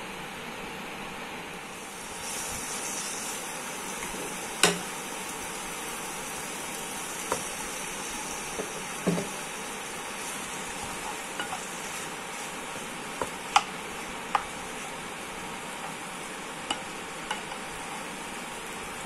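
Vegetables and sauce sizzling in a non-stick frying pan while a wooden spatula stirs and tosses them with boiled penne. The sizzle gets a little louder about two seconds in, and the spatula knocks sharply against the pan every second or two.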